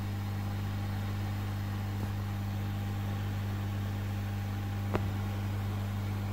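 Hot air rework station running steadily while preheating a circuit board: a constant low hum with no change in pitch. A single sharp click sounds about five seconds in.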